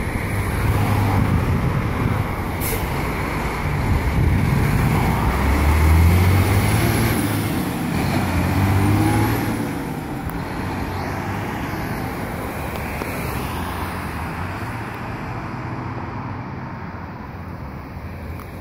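Ford L8000 dump truck's engine pulling away and accelerating, its note swelling and climbing twice, then fading steadily as the truck drives off down the road.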